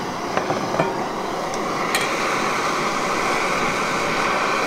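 Single-burner propane stove on a green propane cylinder, just lit and burning at a high flame: a steady, loud rushing hiss that swells a little about two seconds in. A few light clicks and knocks in the first two seconds.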